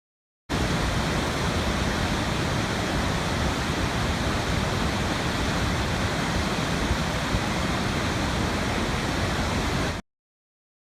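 River in flood rushing past, a loud steady noise of churning water that starts suddenly and cuts off abruptly near the end.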